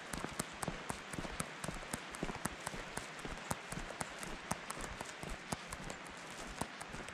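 A hiker's footsteps on a gravelly, broken-asphalt trail: a rapid, irregular run of sharp taps and crunches over a steady hiss.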